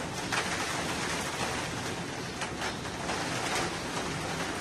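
Rain falling steadily in a windy storm, an even hiss with a few brief louder gusts.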